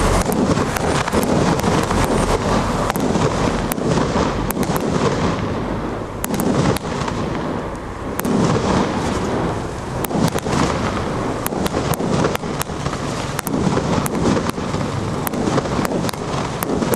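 Stealth Fireworks 'Emerald Nights' multi-shot cake firing in quick succession: repeated shots and aerial bursts with many sharp pops and crackles. The firing thins out briefly about six to eight seconds in, then picks up again.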